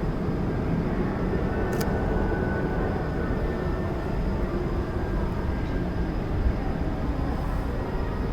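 Steady outdoor crowd ambience with a low rumble, from a large crowd of park guests, and one sharp click about two seconds in.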